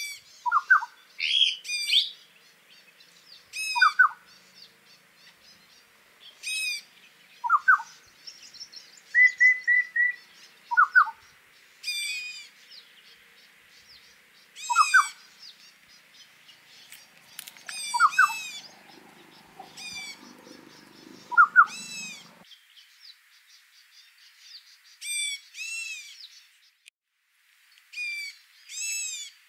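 Wild birds calling over and over, short falling notes and harsher many-toned calls every few seconds, with a quick run of four notes about nine seconds in. A spell of low rustling comes in the second half, about eighteen to twenty-two seconds in.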